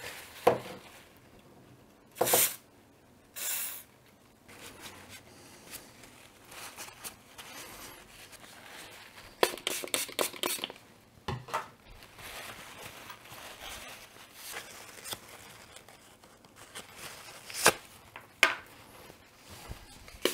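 Paper towel rustling, crumpling and tearing in short bursts while old oil is wiped off the small parts of a rotary-vane compressor, with a couple of sharp light clicks near the end as small parts are set down.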